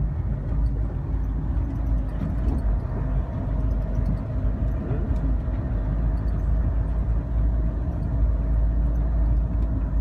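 Inside the cabin of a highland bus fording a river: its engine runs with a steady low drone and hum under the rumble of the ride.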